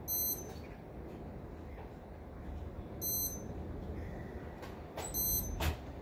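Lightning detector beeping: three short, high-pitched electronic beeps, at the start, about three seconds in and about five seconds in. Its alerts signal lightning strikes within 15 miles. Steady heavy rain hisses underneath, and a sharp click sounds near the end.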